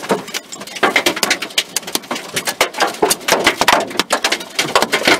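Golf-ball-size hail, driven sideways by the wind, striking the car in a dense, irregular clatter of sharp knocks, several a second, heard from inside the car.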